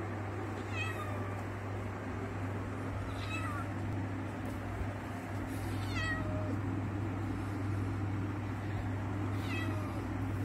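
Young ginger cat meowing four times, short calls each falling in pitch, a few seconds apart, over a steady low hum.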